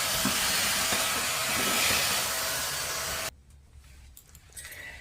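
Henry Quick cordless vacuum cleaner running with a steady hiss, then switched off about three seconds in, cutting out suddenly.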